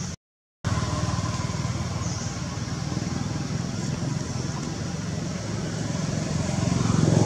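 Steady low motor rumble, getting louder near the end; the sound drops out completely for about half a second just after the start.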